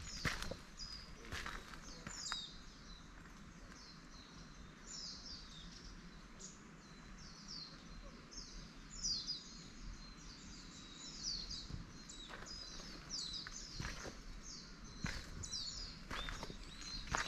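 Small birds calling over and over in the forest, short high chirps that sweep downward, with a walker's footsteps at the start and again near the end.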